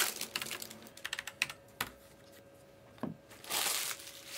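Scattered light clicks and taps, thicker in the first second, with a short rustle about three and a half seconds in.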